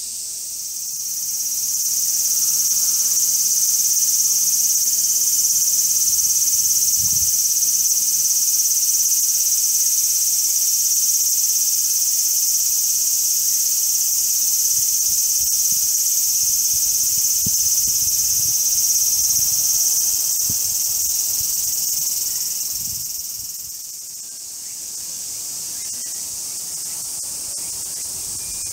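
A chorus of summer cicadas buzzing steadily at a high pitch. It dips about 23 seconds in, then goes on more softly.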